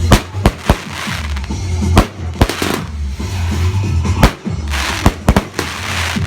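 Fireworks going off: a string of sharp bangs at uneven intervals, some followed by bursts of crackling.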